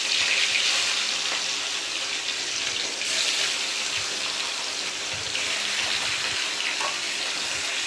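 Rohu fish steaks frying in hot oil in a pan, a steady sizzling hiss.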